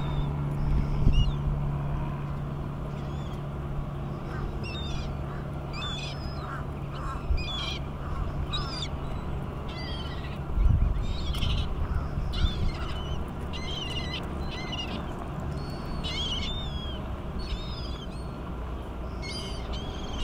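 Gulls calling repeatedly over the water, with short, sharp cries scattered throughout. A low rumble and a steady low hum run underneath, and the hum ends about halfway through.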